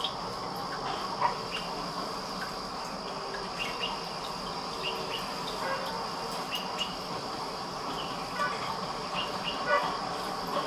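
Steady high-pitched insect trill, with short chirps scattered through it and a couple of brief louder clicks, one about a second in and one near the end.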